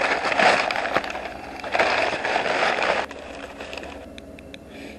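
A rough rustling, scraping noise, like something being handled or rummaged through, that stops about three seconds in, followed by a few light clicks.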